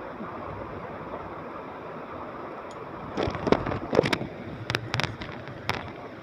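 Ballpoint pen writing on ruled notebook paper over a steady hiss; from about three seconds in, the pen strokes come as a run of quick, sharp scratches.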